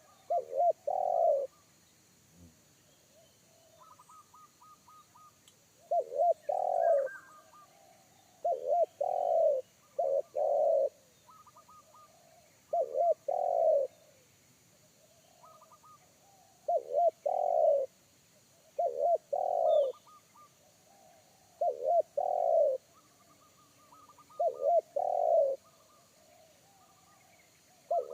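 Spotted dove (tekukur) cooing repeatedly: short phrases of a few quick notes ending in a longer, deep coo, every two to three seconds. Faint high twittering from another small bird comes between the phrases.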